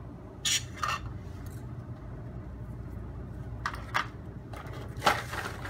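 Plastic labware handled on a bench: a petri dish lid and cryovials clicking and clattering in a few short knocks over a steady low hum.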